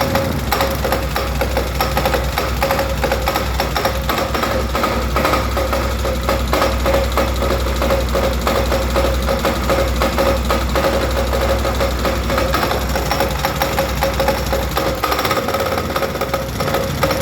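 Stels Dinli 800 EFI ATV engine idling with a fast, steady knocking running through it, a knock whose cause the owner cannot identify.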